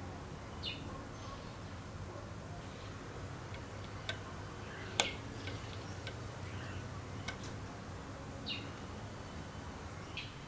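Sparse light clicks and ticks of small parts being handled on a workbench during a solenoid pump restoration, the sharpest click about five seconds in, with a few short high chirps over a steady low hum.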